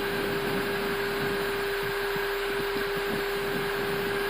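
Airbus A320 cockpit noise while taxiing: a steady whoosh of air-conditioning and avionics fans over the engines at idle, with a constant hum and a light uneven rumble from the wheels rolling over the apron.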